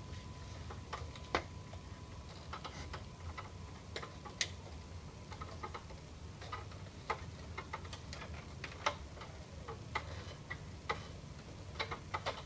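Irregular light clicks and ticks from the exposed mechanism of a disassembled Epson L210 inkjet printer being handled by hand, a few sharper clicks standing out, over a steady low hum.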